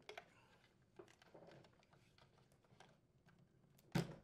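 Faint plastic clicks and rubbing as a blue plastic fan blade is worked off the evaporator fan motor shaft, with one louder plastic knock near the end.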